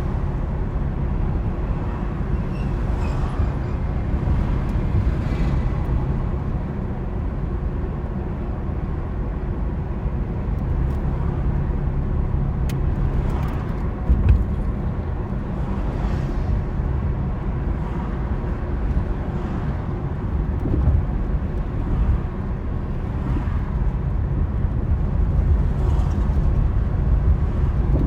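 A car driving along, a steady low rumble of engine and road noise, with a brief thump about 14 seconds in.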